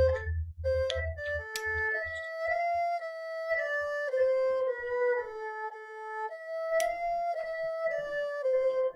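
Music: a slow melody of held notes stepping up and down on a single violin-like instrument sound, from a beat being produced live. A low pulse fades out in the first two seconds, leaving the melody on its own.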